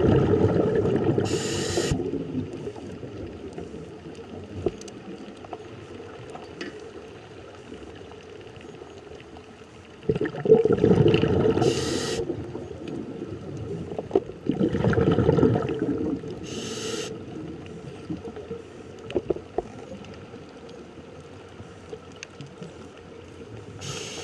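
Scuba diver breathing through a regulator underwater: three long rumbles of exhaled bubbles, at the start, about ten seconds in and about fifteen seconds in, each followed by a short hiss of inhalation, with a last hiss near the end. Between breaths there is a steady underwater hiss.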